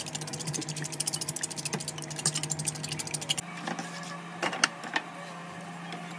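Raw eggs being beaten by hand in a glazed clay bowl, the utensil clicking quickly and evenly against the clay. About three and a half seconds in this gives way to a spatula stirring dried shredded meat in a frying pan, with a few scrapes and knocks against the pan.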